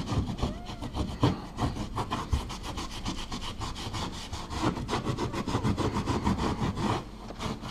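A rag rubbed briskly back and forth over dried drywall compound, in quick scraping strokes that stop about seven seconds in. This is the edges of the mud patch being softened and smoothed before texturing.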